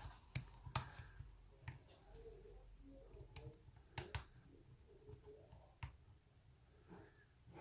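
A lock pick and tension tool working the pins inside a Ruko padlock: a handful of faint, irregular small metallic clicks.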